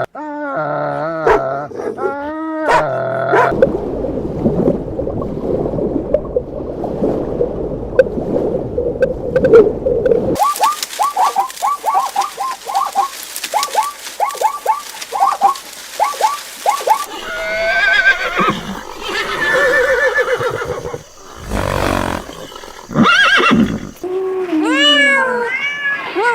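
A string of different animal calls, one clip after another. There are pitched calls at first, then a noisy stretch, then a quick run of short falling notes, several a second, for about seven seconds. Assorted calls follow, with rising-and-falling calls near the end.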